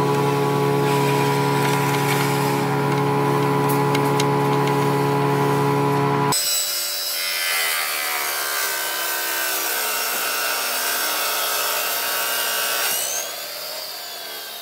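iQ dry-cut masonry saw running with a steady motor hum, then, after an abrupt change about six seconds in, its blade cutting a stone slab: a high grinding hiss with the motor pitch sagging under the load. Near the end a whine rises and falls, and the sound eases off.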